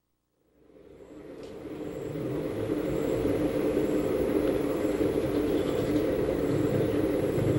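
A steady rumbling noise fades in from silence over the first two seconds and then holds steady.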